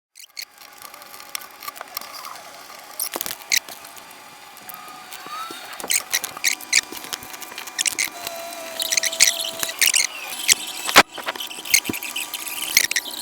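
Packaging being opened and handled: crinkling and rustling with many sharp clicks and taps, and a brief faint squeak partway through.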